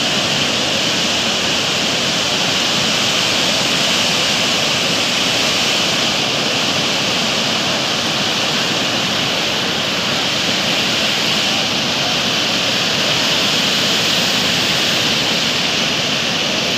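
Ocean surf breaking on a sandy beach: a loud, steady roar of waves without pause.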